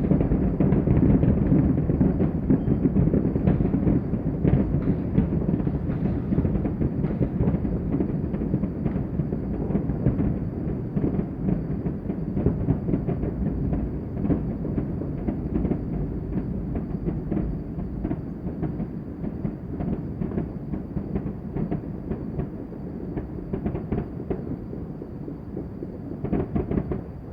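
Dense fireworks and firecrackers going off without pause: a rapid rattle of many overlapping pops over a low rumble. It eases off slowly, with a short louder cluster near the end.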